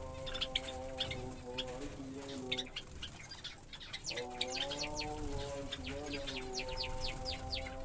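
Small cage birds, finches and Java sparrows, giving many quick, high chirps that drop in pitch. A steady low hum runs underneath, stops for about a second and a half in the middle, then comes back.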